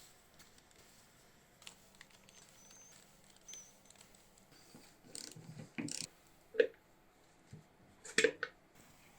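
Hand work on engine parts at a workbench: scattered scrapes, light clicks and knocks of tools and metal parts being handled, with a couple of faint short squeaks early on and two sharper clicks in the second half.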